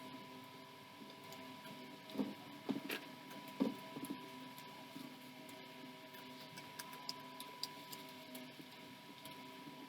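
Faint steady electrical hum with a thin high whine, and a few soft knocks about two to four seconds in, followed by scattered light clicks.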